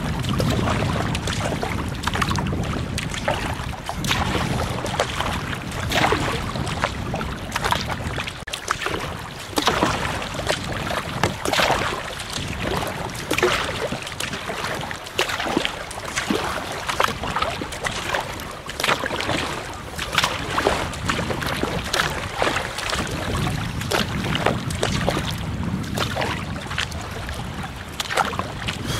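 Water splashing and sloshing around a sea kayak as it is paddled on choppy water, in irregular short splashes. Wind buffets the microphone at times, as a low rumble at the start and again near the end.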